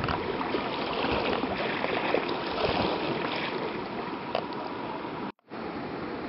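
Floodwater rushing and splashing. Just after five seconds in, the sound drops out in a brief silence, a cut, and then returns as a steadier wash.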